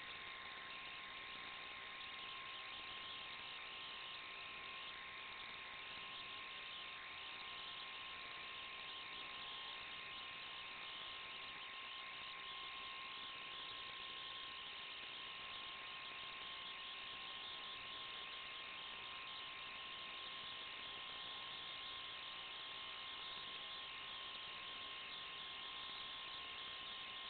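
Steady electronic hiss with a constant thin whine and a low hum, unchanging throughout: static carried on the audio of an analog FPV video link.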